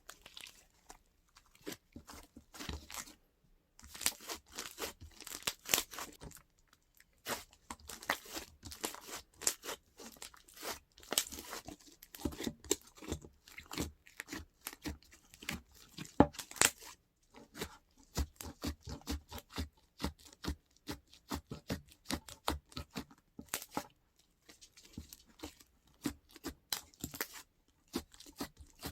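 Slime being squeezed, stretched and pressed by hand, giving dense runs of sticky crackling pops and clicks with short pauses between handfuls.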